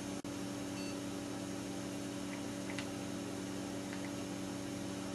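Steady hum of a desktop computer running as it reboots, with a few faint clicks.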